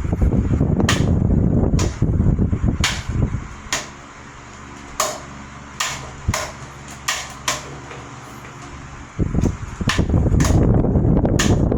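Vintage Tatung 12-inch oscillating table fan running. Air rushes loudly over the microphone while the head faces it, falls away for about five seconds in the middle as the head swings aside, then returns loudly; with the air gone, the motor's steady hum is heard. Sharp clicks come every second or so.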